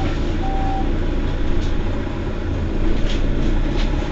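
Mercedes-Benz Citaro facelift city bus standing at a stop with its engine idling steadily. A short beep sounds about half a second in, and a few faint clicks follow later.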